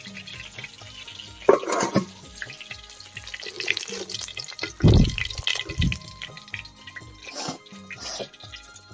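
Background music with a steady beat, broken by a few sharp knocks and clatters of steel cookware, the loudest about five seconds in.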